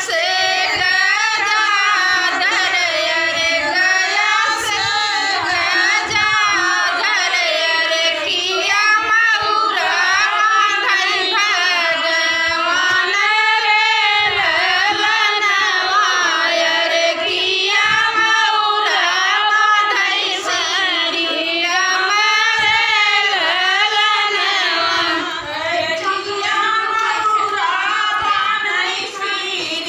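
Women singing a north Indian folk wedding song (vivah geet), the melody wavering and gliding in long sung lines.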